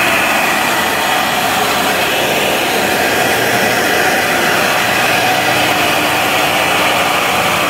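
CNC router spindle cutting through an MDF sheet while a dust extractor pulls air and chips through the hose at the cutter: a loud, steady rushing noise with a few faint held tones, unchanging throughout.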